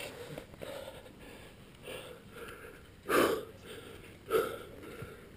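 A climber's hard breathing under strain, with two loud, sharp exhalations about a second apart in the second half, from the effort of pulling hard moves on small holds.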